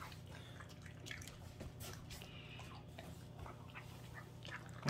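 Small dog eating pieces of roast beef off a plate: faint, scattered wet chewing and mouth-smacking clicks over a low steady hum.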